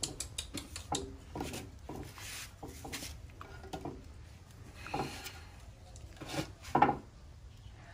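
Light clicks, taps and rubbing of rose apples and a fruit bowl being handled on a wooden tabletop, busiest in the first few seconds, with a louder brief sound near the end.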